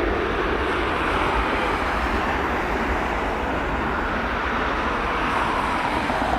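Boeing 737-800's CFM56-7B jet engines at takeoff thrust, a loud steady rushing noise with a low rumble underneath.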